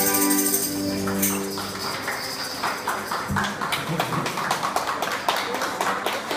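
A violin and keyboard ensemble's final held chord ends about a second in, followed by scattered clapping.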